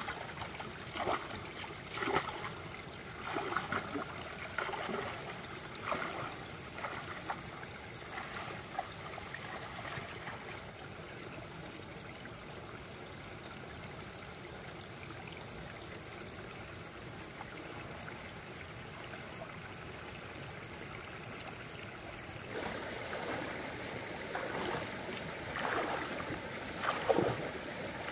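Water splashing and trickling in uneven bursts during the first ten seconds and again near the end, over a steady rush of flowing water in between.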